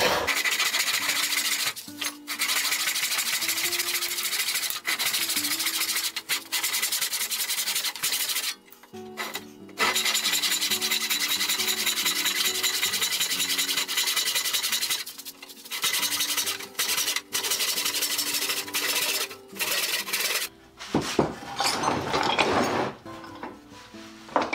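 Handsaw cutting through a wooden block: runs of rasping tooth noise a few seconds long, with short breaks between them. Background music plays underneath. Near the end the sawing stops, and there are a few knocks as the wood is handled.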